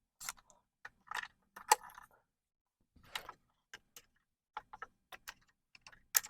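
Irregular light metallic clicks and clinks of hand tools and small engine parts being handled, loudest just before the end.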